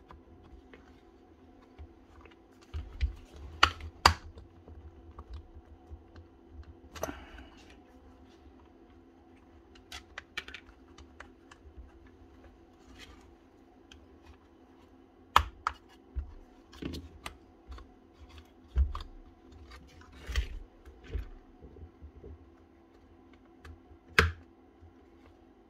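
Irregular clicks and knocks of plastic and metal parts being handled as a DeWalt DCD996 cordless drill is taken apart, over a faint steady hum.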